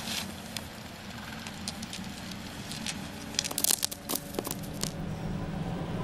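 Faint dry crackling and rustling, a scatter of small sharp clicks that grows busiest about three and a half to four seconds in, over a low steady hum.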